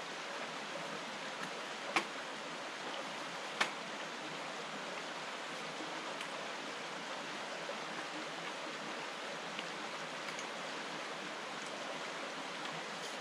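Steady rush of a stream's flowing water, with two sharp clicks about two and three and a half seconds in.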